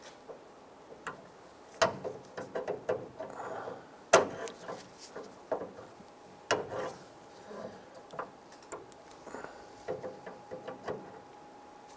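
Needle-nose pliers working a plastic hood latch rod clip on a pickup's grille support: an irregular run of sharp clicks, taps and light scrapes, the loudest about two and four seconds in.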